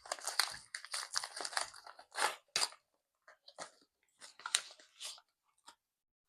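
Packaging crinkling and rustling in the hands as a small parcel is handled and pried at. The crackles come thick and irregular for about three seconds, then thin out to a few scattered rustles.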